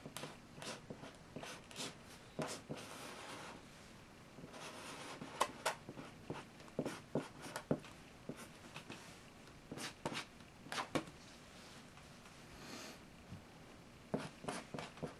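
Two pens drawing on paper at once, both hands working: quick, irregular scratching strokes and taps of the pen tips, with a few longer scratchy strokes and short pauses.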